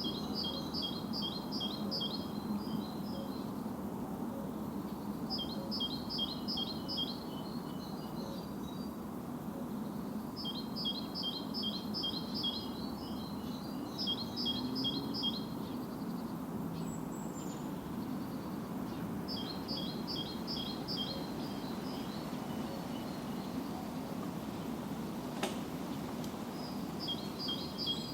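A songbird singing short phrases of quick, evenly repeated high notes, with a pause of a few seconds between phrases, over a steady low background rumble. A single sharp click near the end.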